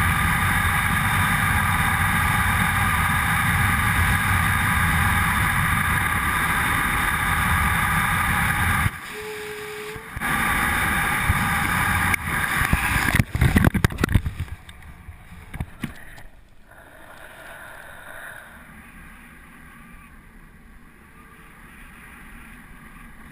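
Loud, steady rush of wind over a helmet-mounted camera during wingsuit flight. About halfway through it turns choppy and irregular as the parachute opens, then falls to a much quieter, gentle wind hiss under the canopy.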